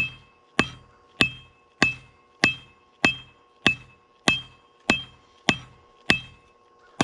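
Hammer striking hot 5160 spring steel on an anvil at a steady pace, about one and a half blows a second, each blow ringing briefly. This is the bar being flattened from square toward a rectangular cross-section.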